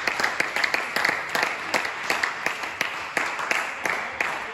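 A small crowd of spectators clapping after a table tennis point won, the applause slowly dying down.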